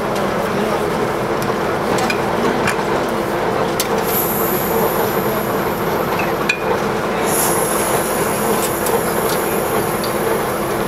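TU7A narrow-gauge diesel locomotive standing and idling with a steady hum. A thin high whistle comes in about four seconds in and again from about seven seconds, with a few light clicks.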